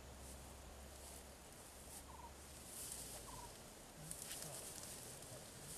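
Quiet grassland ambience in which a bird gives short rattling chirps about a second apart, over a faint hiss.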